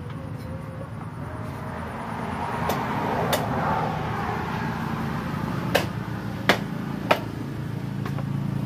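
Meat cleaver chopping through duck carcass onto a thick wooden chopping block: five sharp, irregularly spaced chops, the loudest a little past the middle. A steady low hum of road traffic runs underneath.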